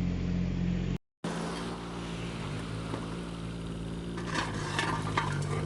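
Mini-excavator diesel engine running steadily, its pitch stepping slightly, with a few knocks of debris about four to five seconds in. The sound cuts out briefly about a second in.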